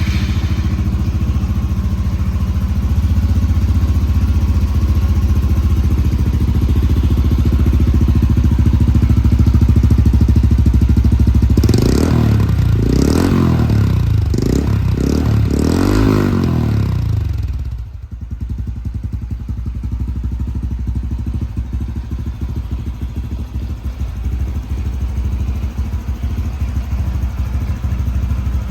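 Honda CT125 Hunter Cub's 125 cc single-cylinder engine idling through a Yoshimura GP-Magnum Cyclone slip-on exhaust, just after starting. About twelve seconds in it is revved in several quick blips over about five seconds, then settles back to a quieter idle.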